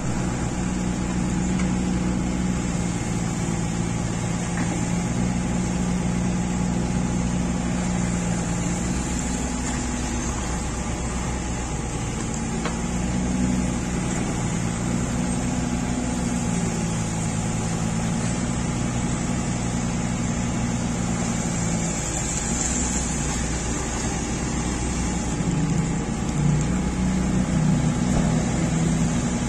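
Diesel engine of an amphibious excavator running steadily as it dredges, its pitch shifting up and down as the arm works.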